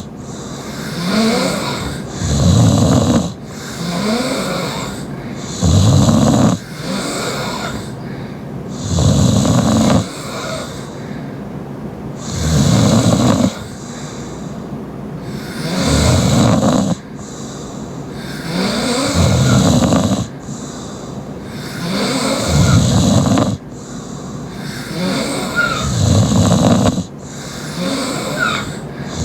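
A young woman snoring heavily through an open mouth in her sleep: a loud snore about a second long comes roughly every three seconds, with quieter breathing between.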